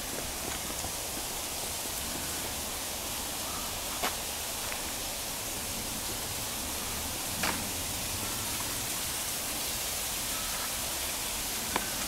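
Steady outdoor hiss, with three brief sharp clicks: about four seconds in, about seven and a half seconds in, and near the end.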